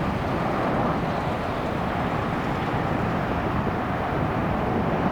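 Jet engines of a landing airliner: a steady rumble with no rise or fall.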